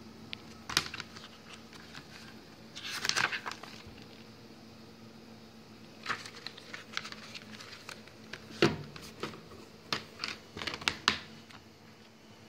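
A plastic DVD case and its disc being handled: scattered clicks and rustling, with a scraping rustle about three seconds in. A run of sharp plastic snaps and knocks comes in the last few seconds as the case is closed and set down.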